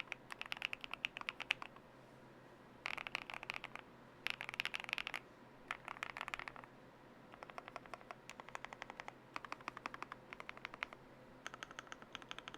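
Monsgeek M2 mechanical keyboard with lubed Akko Cream Black linear switches being typed on in bursts of rapid keystrokes. Each burst lasts about a second, with short pauses between bursts.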